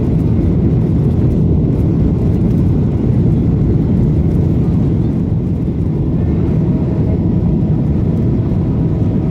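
Steady jet engine and airflow noise of a Ryanair Boeing 737-800 heard from inside the cabin during the climb after take-off: a loud, even low rumble with faint steady engine tones above it.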